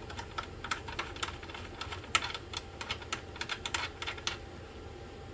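M6 steel screw being turned by hand into freshly thread-milled holes in an aluminium plate, testing the threads: a run of quick, light metallic clicks and ticks that stops about four seconds in.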